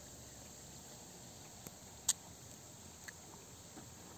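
Faint steady high-pitched hiss of the outdoor background, with one sharp click about two seconds in and a couple of much fainter ticks.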